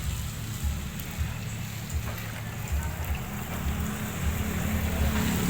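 Outdoor background noise: a low, uneven rumble under a steady hiss.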